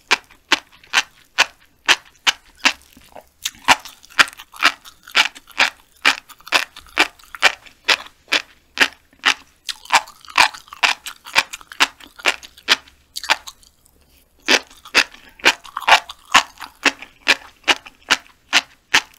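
Close-miked chewing of a mouthful of black flying fish roe (tobiko), the tiny eggs bursting between the teeth as a quick, even run of sharp crunchy pops, about three a second. There is a short pause about two-thirds of the way through.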